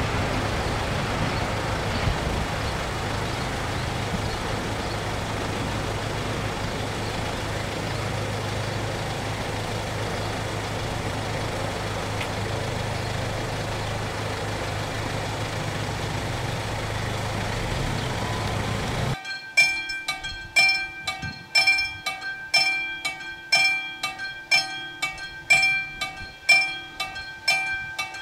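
A car engine idling steadily close by, a low hum. About two-thirds of the way through it gives way abruptly to a level-crossing warning bell ringing in quick repeated metallic strikes of one fixed pitch.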